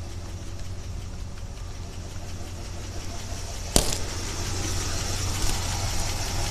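1976 Chevy Blazer's carbureted engine idling rough, a steady low running sound that grows louder in the second half as the microphone nears the engine bay. A single sharp click a little under four seconds in.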